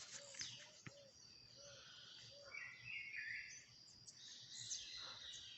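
Faint outdoor ambience with birds chirping: short high chirps and whistles, a brief cluster of them about three seconds in, over a low hiss.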